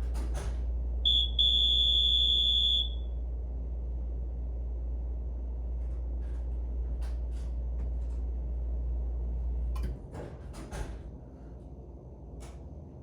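Hotel room electronic doorbell buzzing: a short high beep, then a steady high buzz of about a second and a half. A steady low hum cuts off about ten seconds in, with a few clicks around it.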